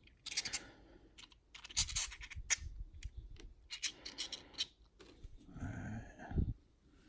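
Small metal parts and tools of a dimple lock being handled as its pins are loaded back into the cylinder: scattered sharp clicks and scrapes, with a longer, duller rubbing sound near the end.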